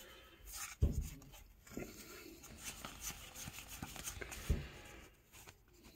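Cardboard baseball trading cards being handled and flipped through by hand: a papery sliding and rustling of card on card, with two soft thumps, about a second in and again about three and a half seconds later.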